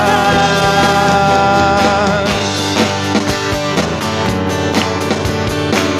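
Live worship-band music: acoustic guitar and keyboard under a long held sung note that fades about two seconds in, after which the band plays on with a steady beat.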